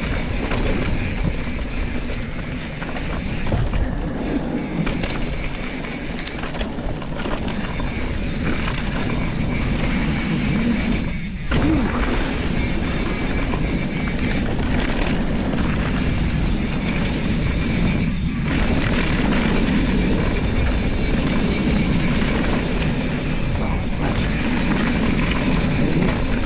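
Wind buffeting an action camera's microphone and tyres rumbling over a dirt trail as a mountain bike rides downhill: a steady low rumble, with brief drops about 11 and 18 seconds in.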